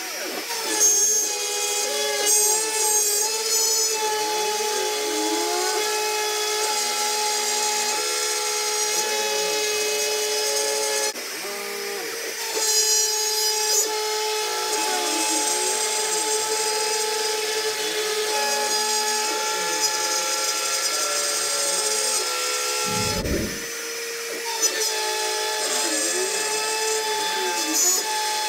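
A CNC router with a Bosch router spindle cutting plywood: a steady high motor whine throughout, with repeated rising and falling whines as the head travels along the cut. Brief brighter, harsher stretches come a couple of seconds in and again about halfway through.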